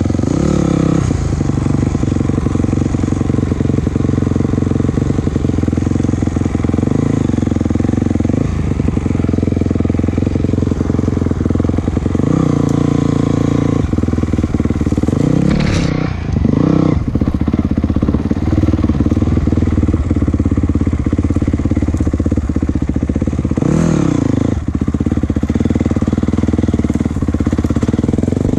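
Motor vehicle engine running under load, its pitch rising and falling several times as the throttle is opened and eased, with a brief drop about sixteen seconds in.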